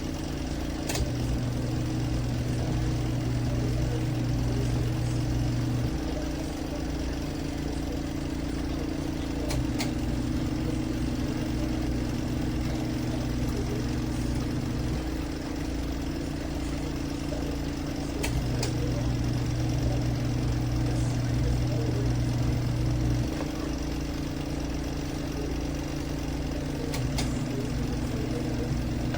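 ZenStyle compact twin-tub portable washing machine running a wash cycle. The motor comes on for about five seconds, drops back for a few seconds, then comes on again, as the agitator turns one way, pauses and reverses, with a light click at the start of each run.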